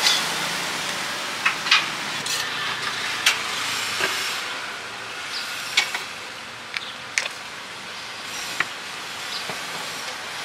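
Fried noodles sizzling in a steel wok over a gas burner, a steady hiss that eases somewhat after the middle, with a few sharp metal clinks of the spatula against the wok.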